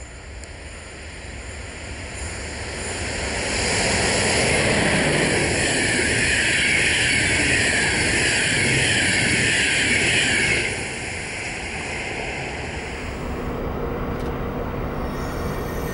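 Passenger train of coaches hauled by a DB Class 103 electric locomotive passing at speed: a rushing rumble of wheels on rail that swells over the first few seconds and stays loud. It cuts off suddenly about ten and a half seconds in, leaving a quieter steady background.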